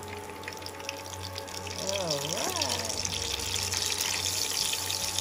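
Battered stuffed sweet peppers deep-frying in hot oil: a steady crackling sizzle that grows louder about two seconds in.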